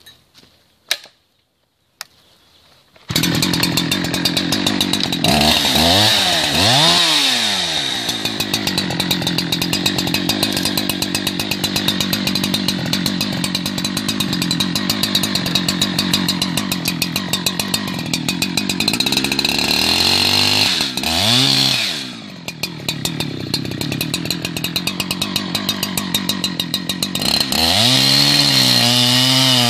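Chainsaw cutting the top cut of a felling notch in a blue gum trunk. It comes in suddenly about three seconds in, revs up and down a few times, and runs steadily under load in between, easing off briefly about two-thirds of the way through.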